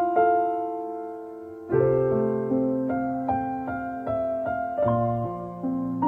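Background piano music: a slow, gentle melody of single struck notes over held chords, with a new chord about two seconds in.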